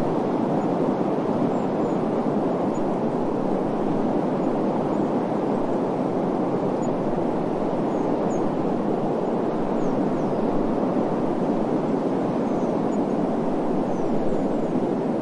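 Steady rushing desert wind ambience, an even noise with no breaks or gusts.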